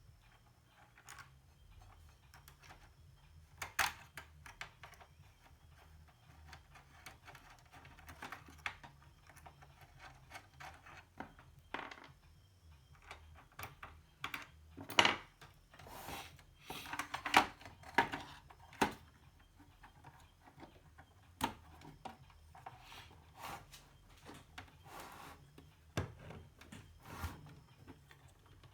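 Scattered metallic clicks, clinks and light knocks of hand tools and screws while the preamp board is unscrewed and lifted out of an amplifier chassis, over a faint steady low hum.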